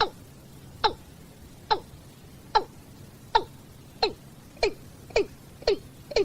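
Watercock calling: a series of about ten short, hollow notes that each slide down in pitch, coming faster and faster as the series goes on.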